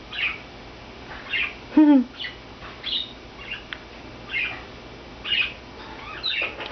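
Pet budgerigars chirping and squawking in a run of short, high calls about every half second to a second.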